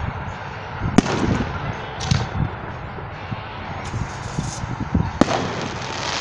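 Aerial fireworks going off: sharp bangs about a second in, at two seconds and just after five seconds, the first the loudest, over a constant low rumble and hiss.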